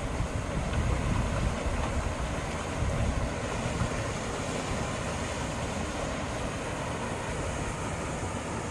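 Steady outdoor rushing noise of water spilling over a weir, with wind gusting on the microphone for roughly the first three and a half seconds.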